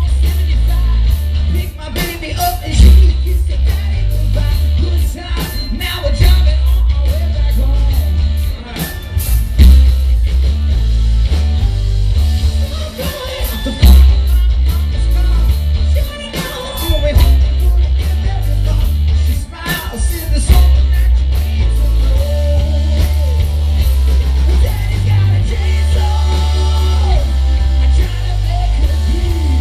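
Live rock band playing loudly through a PA: electric guitar, heavy bass and drums, with a singer.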